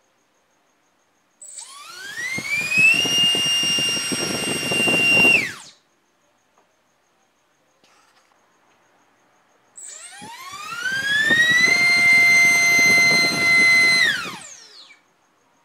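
BrotherHobby Tornado T1 1407-3600KV brushless motor on a 4S battery spinning small three-inch propellers on a thrust test stand. Twice it spools up with a rising whine to full throttle, holds for two or three seconds, then cuts off and winds down quickly. The buzz of the prop blades runs under the whine.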